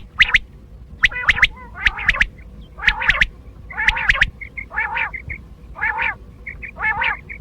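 Quail calling repeatedly, a group of sharp, rapid notes about once a second, with softer short notes in between.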